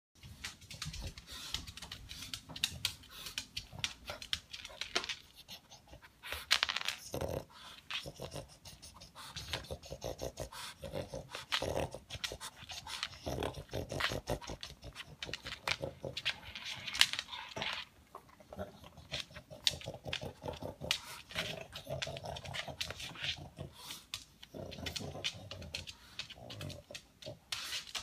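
Pug sniffing and snuffling noisily along the floor as it hunts for food pellets, in rapid, irregular bursts that sound like a noisy vacuum cleaner.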